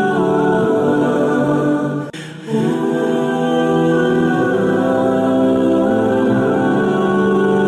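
Background music of long held, choir-like chords, with a brief drop-out about two seconds in.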